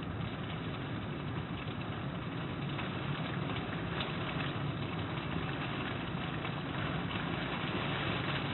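Steady rain falling: an even hiss of drops with fine ticks through it.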